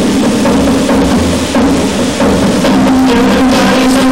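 Recorded pop music with drums and a steady beat, playing loudly.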